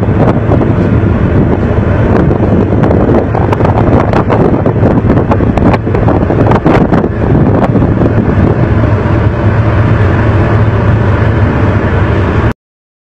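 Loud wind buffeting the microphone over the steady low drone of a boat's engine. It cuts off abruptly near the end.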